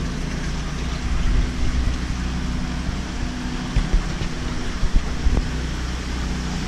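A 7000-running-watt gasoline generator running steadily with a low hum, under a hiss of moving water from the tank pumps and aeration. A few light knocks come about four and five seconds in.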